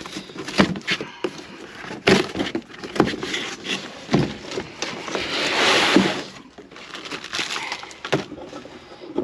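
Stapled cardboard box being pulled open by hand: sharp cracks and knocks as the flaps tear free of the staples, with a longer scraping of cardboard about five to six seconds in.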